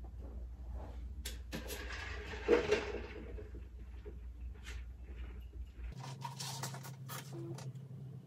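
Steady low hum with scattered small knocks and clicks of things being handled, and a short louder clatter about two and a half seconds in. The hum jumps to a higher pitch about six seconds in.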